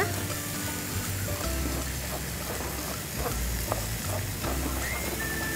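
Chicken wings sizzling as they fry in a pan, with a few knife chops on a cutting board about the middle, under background music with a repeating bass line.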